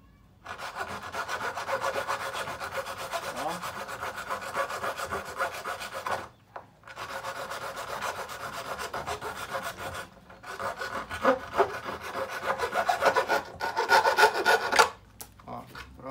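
Hacksaw blade sawing through the white plastic of a twin-tub washing machine's base in quick back-and-forth strokes. It stops briefly about 6 and 10 seconds in, runs louder in the last few seconds, and stops about a second before the end.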